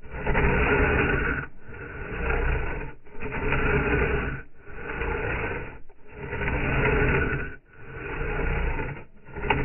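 Silky Pocketboy folding pull saw cutting through a mossy branch: even rasping strokes back and forth, about one every second and a half.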